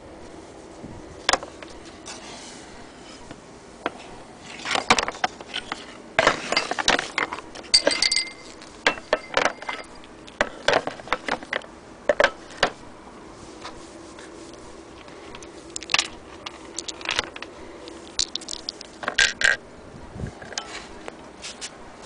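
Irregular clicks, knocks and scrapes of small metal parts being handled: the cast-iron hand crank attachment of a Willcox & Gibbs sewing machine and its loose fittings, knocking in several short clusters.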